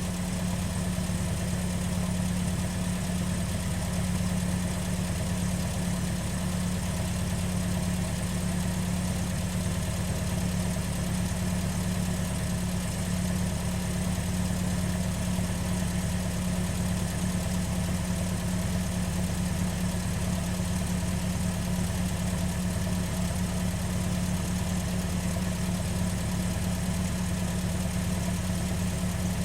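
Car engine idling steadily, heard from outside the car.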